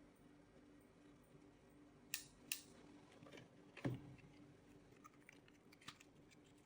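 Items being unboxed from an advent calendar: a few sharp clicks and taps, two about two seconds in and the loudest just before four seconds, then fainter light ticks, over near silence.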